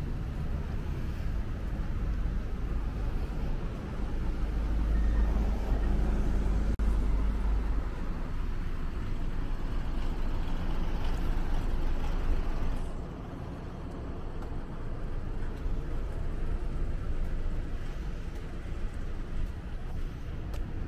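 City street traffic: motor vehicles passing, with a heavy low rumble about four to eight seconds in and the sound easing off about thirteen seconds in.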